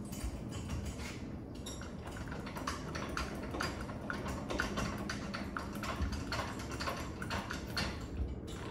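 Rapid, irregular metal clicking and clinking as hitch hardware on a Turtleback Getaway trailer's tongue is worked by hand while the trailer is readied for towing.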